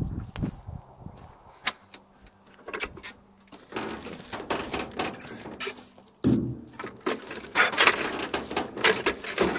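Tirfor hand-operated wire-rope winch being pumped by its lever, its gripping jaws clicking and clacking with each stroke as the cable hauls a pine log. The clicking is sparse at first and grows dense about four seconds in, with a heavier thump a little past six seconds.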